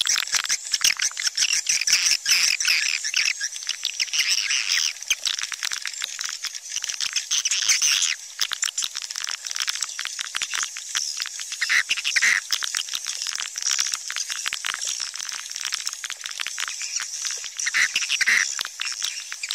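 Swiftlet calling sound, the recorded swiftlet twittering that is played in swiftlet houses to lure the birds in to roost and nest. It is a dense, continuous chatter of rapid chirps and clicks.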